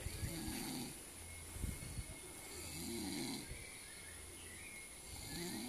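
A sleeper snoring in a slow, regular rhythm, one snore about every two and a half seconds.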